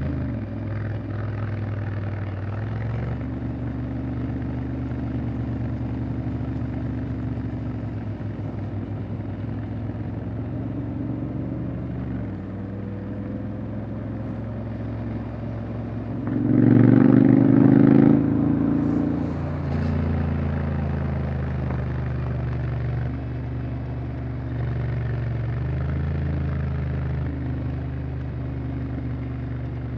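Honda X-ADV 750 parallel-twin engine running while riding, its pitch stepping up and down as the revs change. A louder surge lasts about a second and a half, a little over halfway through.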